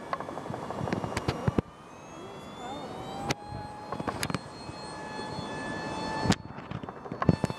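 Jet aircraft flying past, a steady engine whine with several high tones over a noisy rush. Sharp clicks and knocks break in now and then, and the sound drops abruptly about a second and a half in and again past six seconds.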